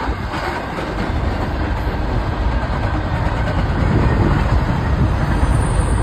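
Double-stack container freight train rolling past: a steady, loud rumble of the cars' steel wheels on the rails, heaviest in the low end.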